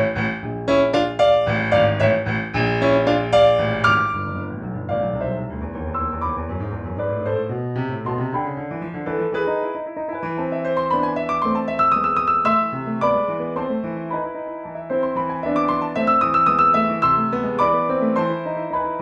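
Roland F-140R digital piano playing in its grand piano tone. Loud, full struck chords for about the first four seconds, then a softer, flowing melody over a bass line that climbs in pitch.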